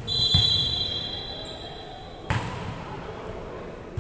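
Referee's whistle blown in one long blast of about two seconds, then a single sharp smack of a volleyball being struck a little past halfway.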